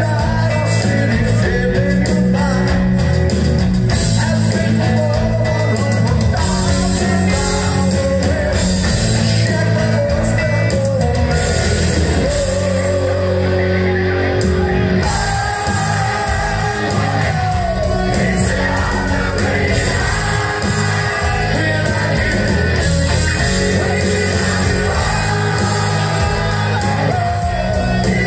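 Live hard rock band playing: electric guitars, bass guitar and drums, with a male singer.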